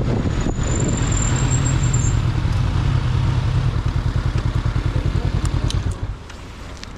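Motorcycle engine running at low revs with an even pulsing exhaust beat, then shut off about six seconds in.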